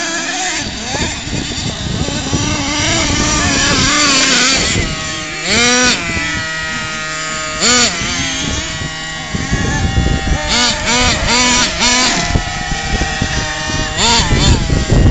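Small nitro engine of a CEN Genesis RC monster truck, revved up and down in short repeated blips as the truck is driven over rough dirt.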